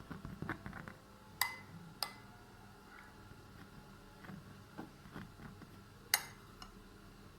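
Light clinks of a utensil against a dish while oil is spread on freshly baked buns: three sharp clinks with a short metallic ring, about a second and a half in, at two seconds, and near the end, among softer taps.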